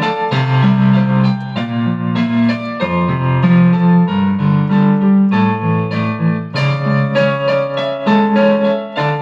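Electric keyboard playing a piano sound: chords over a moving low line, with the notes changing about every second.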